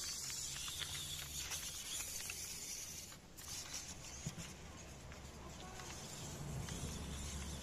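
1:24-scale 3D-printed RC Land Cruiser driving over loose dirt: its small drive motor and gears hum as the soft TPU tyres crunch and patter on grit, with scattered small clicks in the first two seconds.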